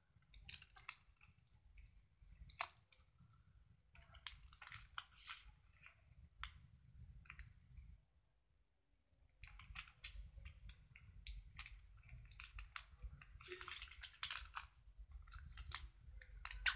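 A strip of paper being folded and pressed between the fingers: soft crackling and rustling in short spurts, pausing for about a second and a half just past the middle and busiest near the end.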